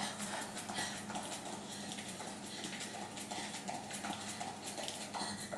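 Running shoes padding quickly and rhythmically on an exercise mat during a fast cardio shuffle drill.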